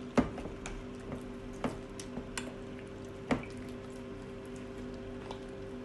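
Thick hot-pepper-paste marinade being stirred in a stainless steel bowl: soft wet squelching with scattered clicks of the utensil against the metal, a few louder than the rest. A steady low hum runs underneath.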